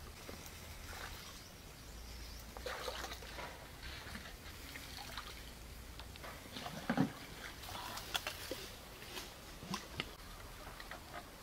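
Stream water sloshing and trickling, with scattered rustles, clicks and knocks from branches being handled, the loudest a dull knock about seven seconds in.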